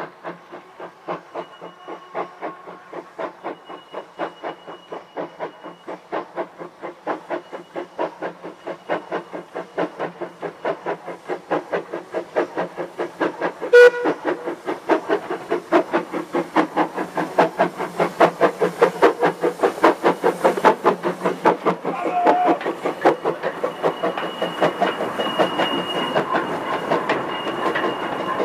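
Small steam tank locomotive working a train toward the listener, its exhaust chuffing in an even beat of about two to three a second that grows steadily louder as it approaches, with one sharp crack about halfway. In the last few seconds, as it draws alongside, steam hiss and wheels clacking over rail joints join in.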